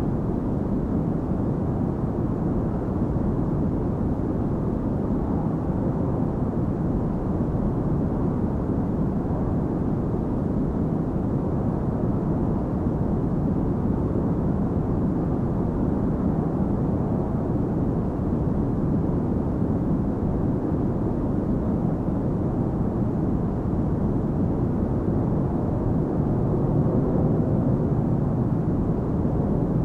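Jet airliner cabin noise in flight: the steady, deep rumble of engines and rushing air heard inside the cabin, unchanging in level, with little high hiss.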